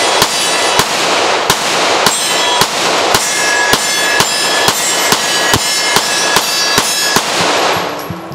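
Glock Gen 4 9mm pistol fired in a steady string of about fifteen shots, roughly two a second, each shot echoing off the wooden shooting shed. The firing stops about seven seconds in and the echo dies away.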